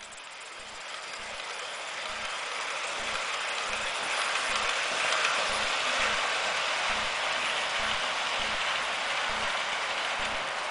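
Hornby OO gauge live steam model of the locomotive Mallard running with its train: a steady hiss of steam and running noise that grows louder over the first few seconds as it comes past, over a soft, even knock about twice a second.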